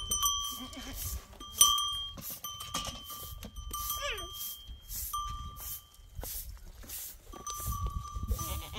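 A flock of sheep and goats with neck bells, the bells clanking and ringing again and again as the animals move, with a bleat about halfway through.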